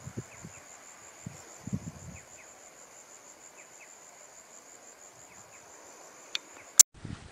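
Steady high-pitched insect trill with a fast, even pulse, with a few faint, short falling chirps over it and some low bumps in the first two seconds. It cuts off with a sharp click near the end.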